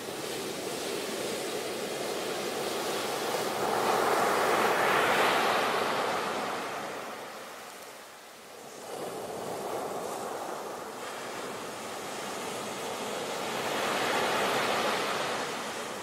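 Ocean surf breaking and washing up a beach: a rushing wash that swells to a crash, fades, then builds again with the next wave, twice in all.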